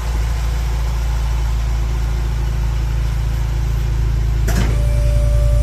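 A 2019 Luxgen U6 GT220's 1.8-litre engine idling through an aftermarket exhaust with a header, metal catalytic converter and single-canister muffler, giving a steady, deep, pulsing rumble. A short click comes about four and a half seconds in.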